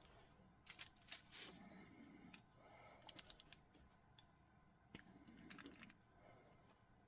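Faint, scattered small clicks and taps with light rustling from handling a nail polish bottle and its brush while painting a swatch.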